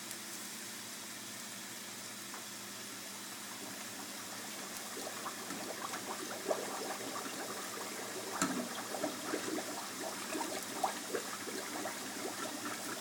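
Puri bread deep-frying in a commercial fryer's hot oil: a steady bubbling hiss. Short crackles grow more frequent from about five seconds in, with one louder knock partway through.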